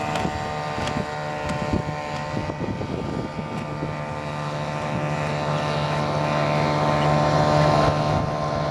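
1951 Mercury "Super 5" two-stroke outboard motor running steadily at a constant pitch on a small hydroplane, getting louder through the second half as the boat comes closer.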